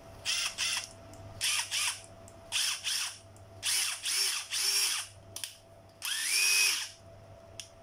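Hitachi cordless drill-driver run in short trigger pulls, six brief spins of about half a second each. The last run is longer and winds up in pitch before holding steady.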